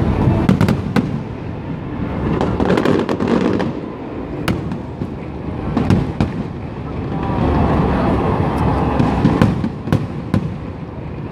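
Aerial fireworks display going off: a string of sharp bangs and crackles from shells bursting overhead, over a continuous low rumble.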